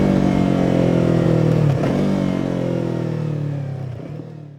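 2017 Yamaha R3's parallel-twin engine running on the road, its pitch sinking slowly as the bike slows, with a brief break in the sound about two seconds in. The sound then fades out near the end.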